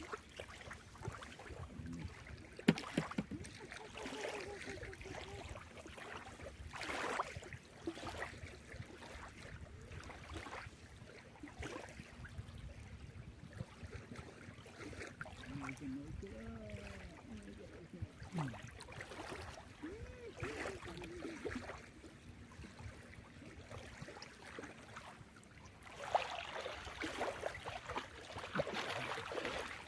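Faint seaside background of wind and water noise, with scattered light knocks and brief faint distant voices partway through; the wind and water noise grows louder near the end.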